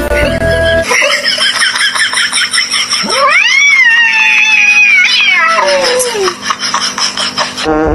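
Domestic cat yowling at its own reflection in a mirror. It gives one long drawn-out call that rises and then slides slowly down over about three seconds. A brief snatch of music ends about a second in.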